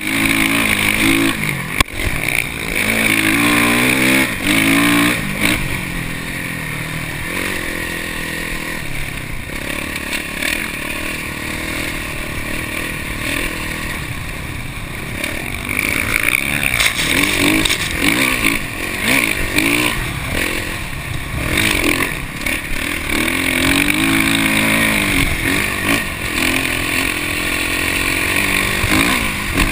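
Dirt bike engine heard from on board, revving up and easing off again and again as the bike rides through sand, with steady wind noise on the microphone.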